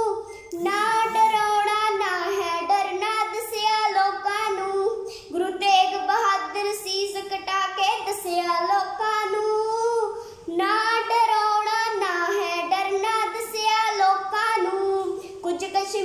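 A young girl singing solo in long melodic phrases, with brief breaths about every five seconds.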